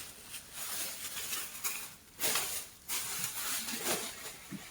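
Grocery bags and produce being handled, rustling in several short bursts.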